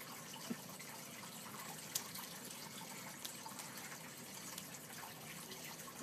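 A few faint clicks of an African grey parrot's beak chewing on a plastic pen, over a steady hiss.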